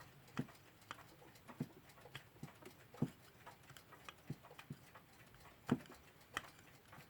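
Irregular light clicks and taps of small metal parts as a Metamec mantel clock movement is handled and a nut on it is undone by hand.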